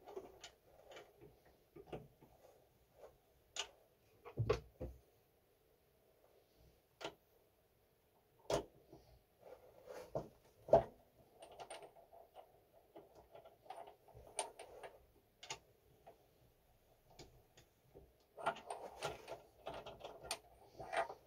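Irregular clicks, taps and knocks of tools and small metal parts being handled at a workbench, with a few louder knocks and a busier stretch of clattering near the end.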